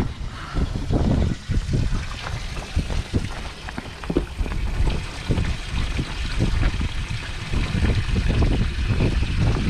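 Water trickling and splashing around a small fishing boat, with wind buffeting the microphone in uneven gusts.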